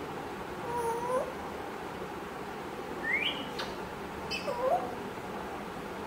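African grey parrot calling: a short low two-toned call about a second in, a quick rising whistle about three seconds in followed by a click, and a few short high notes with a rising call near the five-second mark.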